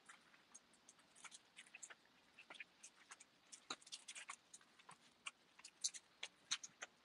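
Faint, irregular light clicks and ticks from small leashed dogs walking and scrambling on concrete paving stones.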